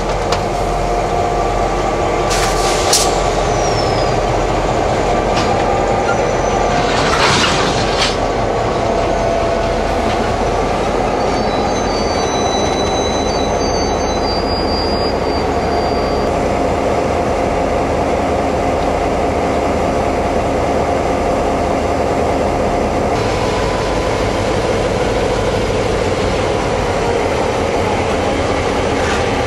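A pair of Roots-blown EMD 645E diesel-electric locomotives running steadily as they haul a cattle train slowly past, with the wagons rolling behind. Thin high wheel squeals come in about halfway through.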